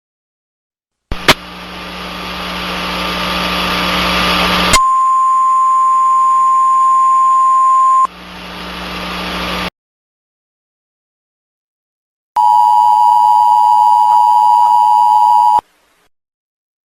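A click, then hissing broadcast static that swells for a few seconds. It gives way to a single steady beep tone of about three seconds, and the static briefly returns. After a short silence comes the Emergency Alert System attention signal: a harsh two-note tone held for about three seconds.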